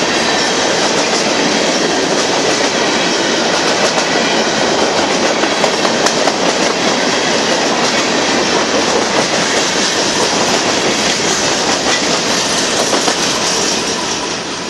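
Union Pacific freight train of hopper cars rolling past, its steel wheels clicking over the rail joints with a steady dense rattle. The sound eases slightly near the end.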